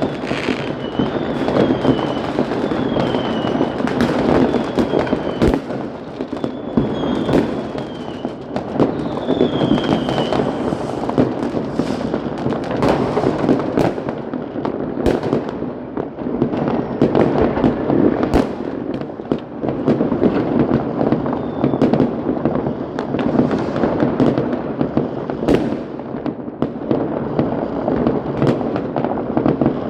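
Fireworks going off without pause: a dense crackle of firecrackers and many sharp bangs, with several short falling whistles from whistling rockets in roughly the first ten seconds.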